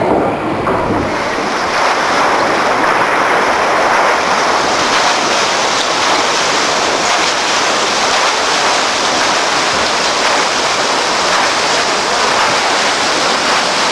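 A steam pumping station's scoop wheel turning in its channel, its paddles churning and splashing water in a steady rush. The rush swells about a second in and grows brighter over the next few seconds.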